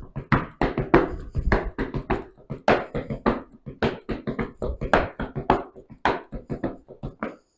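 Heavy boots stamping and stepping on a hard floor in a quick, uneven rhythm of about three to four strikes a second: the footwork of a Chuvash folk-dance step.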